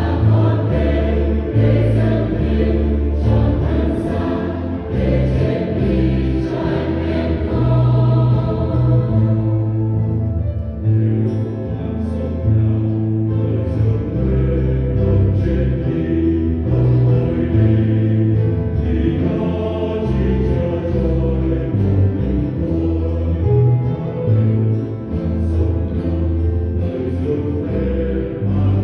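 Church choir singing a hymn in Vietnamese, with instrumental accompaniment and a prominent bass line.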